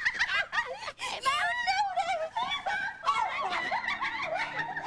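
Women snickering and laughing mockingly: high, wavering laughter, with more than one voice overlapping from about three seconds in.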